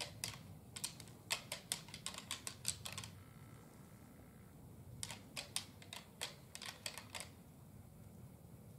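Rattling antlers clacked together in two runs of quick, sharp clicks, the first lasting about three seconds and the second about two seconds after a short pause. This is deer-call rattling that mimics two bucks sparring to draw in a whitetail buck.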